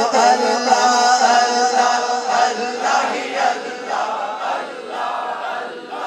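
A male singer's long held note dies away in the first couple of seconds, then a crowd of men chant and shout together.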